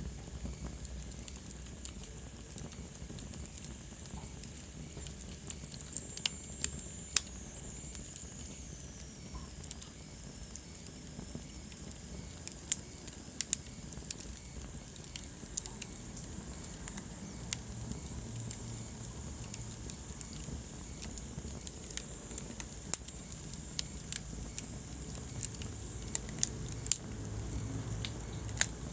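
Wood fire burning in a fireplace, crackling with irregular sharp pops over a low steady rumble of the flames. A faint high whistle slides down in pitch about six to nine seconds in.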